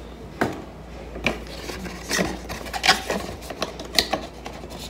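Handling noise of a selfie-stick tripod and its clear plastic packaging: irregular sharp plastic clicks and knocks, about five of them, over light rustling.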